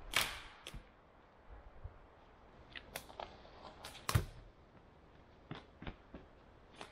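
Dry dead sticks and branches snapping and knocking as a man walks onto and handles fallen deadwood: a string of sharp cracks, loudest just after the start and about four seconds in.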